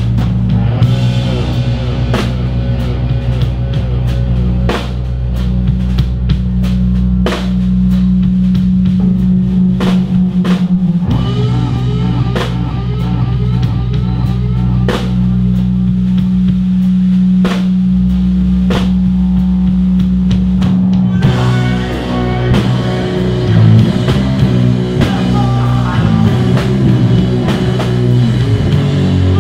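Live doom/stoner rock band: distorted electric guitars and bass guitar holding long low notes over a drum kit with frequent cymbal and drum hits, with a repeating bending guitar figure on top. About 21 seconds in the riff changes to a busier, faster-moving part.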